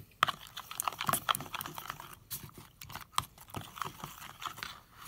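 A utensil stirring a watery slime mixture, with borax activator just added, in a plastic bowl, making many quick, irregular clicks and taps against the bowl.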